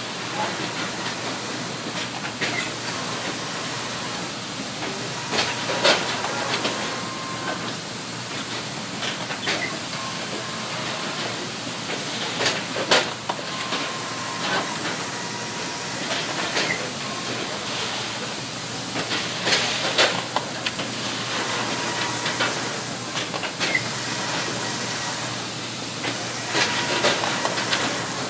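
Machinery of a glass ceramic-paint printing line running: roller conveyors and printing equipment give a steady hiss, broken by sharp metallic clicks and clanks at irregular intervals.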